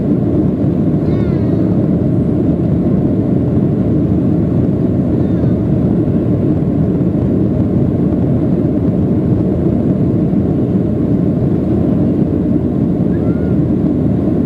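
Steady, mostly low-pitched jet engine and airflow noise heard inside the passenger cabin of a Boeing 737-800 in flight, from its CFM56 turbofans.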